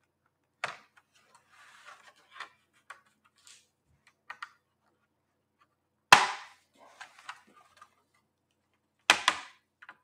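Plastic retaining clips of a Lenovo Ideapad 3 laptop's bottom cover popping loose as the cover is pried off. There are a few sharp snaps, the loudest about six seconds in and a quick pair near the end, with faint plastic scraping and ticking between them.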